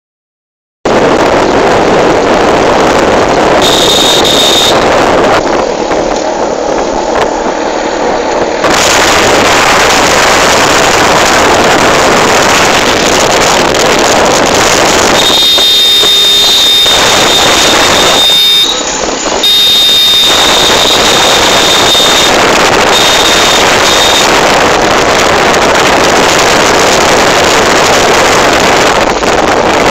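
Loud, steady wind rush and road noise from a moving vehicle, with a thin high whistle that comes and goes.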